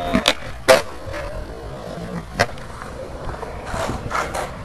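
Skateboard wheels rolling on concrete, with sharp clacks of the board hitting and landing. The loudest comes just under a second in, another a little before the midpoint, and a quick run of them near the end.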